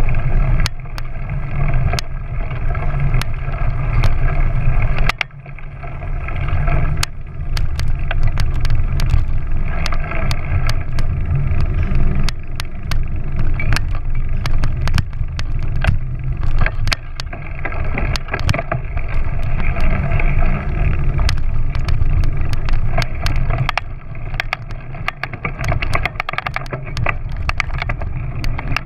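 A small motorbike engine running steadily while riding a bumpy dirt track, with wind rumbling on the microphone and frequent sharp clicks and knocks from the rough ground. The engine eases off briefly about five seconds in, then picks up again.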